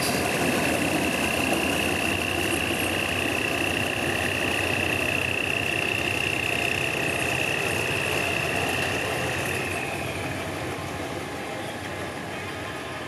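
Diesel-electric locomotive of French Alsthom build running as it moves off and draws away, its engine sound over a high, steady whine. The whine dies out about ten seconds in and the engine sound fades as the locomotive recedes.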